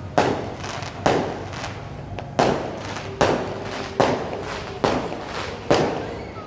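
Fireworks going off: a run of about eight sharp bangs, one roughly every second, each trailing off in an echo.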